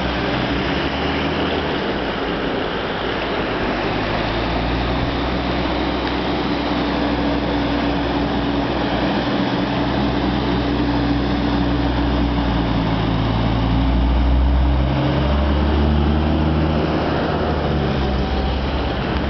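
Car engine running steadily while the car moves through floodwater, over a continuous rush of water. The engine note shifts and grows a little louder about three quarters of the way through.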